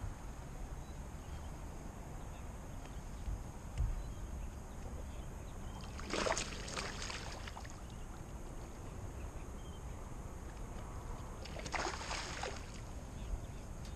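Water splashing twice, each splash lasting about a second, with several seconds between them, over a steady low rumble.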